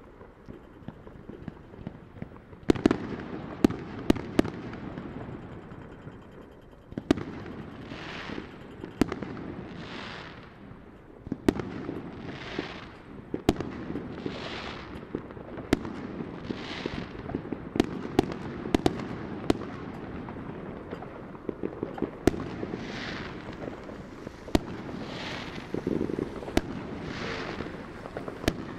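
Fireworks going off all around: a steady rumble of distant bursts with many sharp bangs and crackles, starting about three seconds in. From about eight seconds in, hissing whooshes come every couple of seconds.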